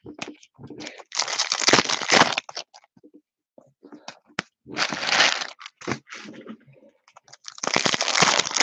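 Foil trading-card pack wrappers being torn open and crinkled by hand, in three crackling bursts of about a second each, with small clicks and rustles between.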